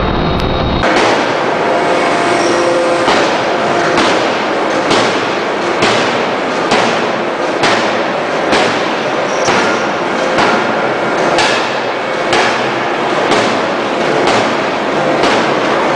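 6-tonne bridge-type electro-hydraulic open-die forging hammer striking a red-hot billet to draw it out. The blows land about once a second, each a sharp heavy bang with a short metallic ring after it.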